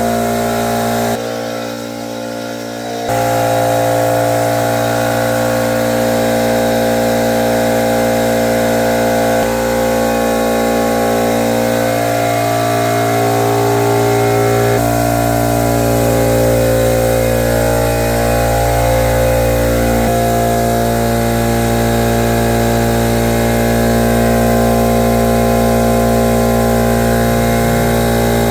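Motor of the dryer vent cleaning equipment running steadily with a constant hum of tones. It drops in level for about two seconds shortly after the start, then comes back up and runs on.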